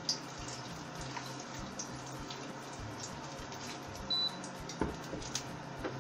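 Whole spices (star anise, cinnamon stick, cardamom pods) sizzling in hot oil in a thin wok: a steady hiss with light crackling, and a couple of louder clicks about five seconds in.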